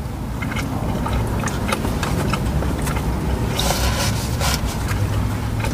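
Close-miked chewing and eating noises with scattered small clicks of a plastic fork on a takeout container, and a brief rustle about two-thirds of the way in, over a steady low rumble in the car cabin.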